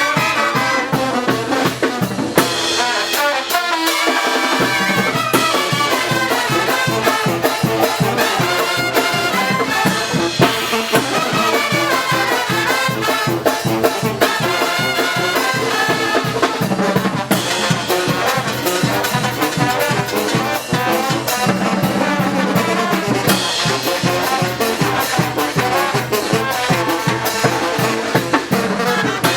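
Oaxacan brass band, trumpets and trombones over drums, playing a fast, steady muertero carnival rhythm. The bass briefly drops out about three seconds in, then the full band comes back.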